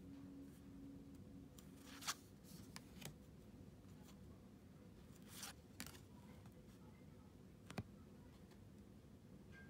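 Pokémon trading cards being slid and flipped in the hand: a few faint clicks and short rustles, over a low steady hum.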